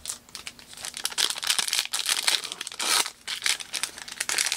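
Foil wrapper of a 2023 Panini Prizm Draft Picks basketball card pack crinkling as it is handled, a dense irregular run of crackles.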